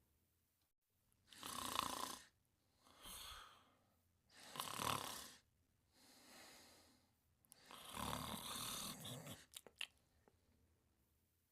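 Snoring in sleep: three snores, each followed by a quieter breath, the third snore longer and drawn out.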